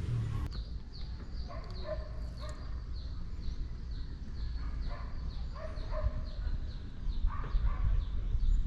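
Animal calls: a high, falling chirp repeated about twice a second, with lower calls breaking in now and then, over a low rumble that grows near the end.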